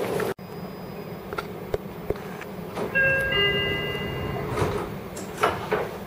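Inside a Seibu 40000-series train car: a door chime of several steady tones sounds for about a second and a half, then two thuds near the end as the sliding doors finish closing, over the car's steady background hum.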